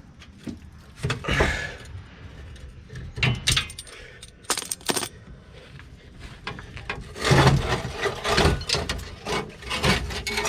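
Old rusted steel gas tank skid plate scraping and clanking as it is worked and slid out from under the Jeep: irregular knocks and scrapes, busiest in the last few seconds.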